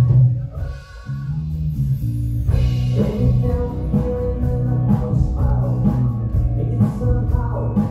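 Live pop-rock band playing, with electric guitars, keyboard, drums and a singer. The music drops back briefly about a second in, then comes back in full.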